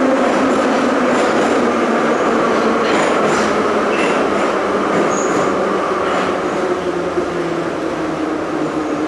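Moscow Metro train running, with a steady rumble and a whine that glides slowly lower in pitch.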